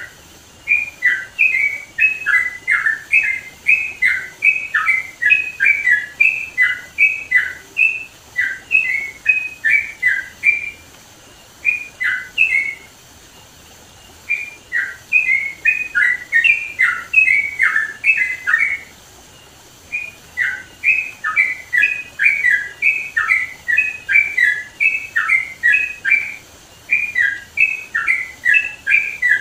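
Yellow-vented bulbul (trucukan) singing loudly in full song: quick, bubbly phrases of short falling notes, broken by a few brief pauses.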